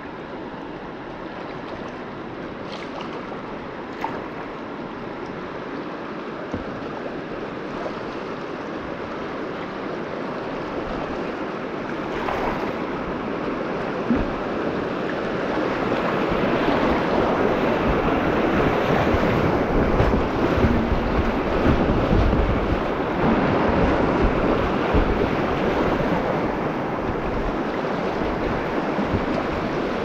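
Rushing whitewater of a river rapid, a dense noise of moving water that grows louder through the first half and stays loud after, with wind and water buffeting the action camera's microphone. A few short knocks stand out briefly.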